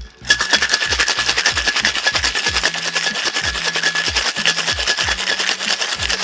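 Ice rattling hard inside a metal cocktail shaker during a vigorous shake, a fast, even rattle that starts a moment in and keeps going. The shaker holds rum, cognac, gin, orgeat and citrus juice, and is being shaken with ice to chill and dilute it before straining.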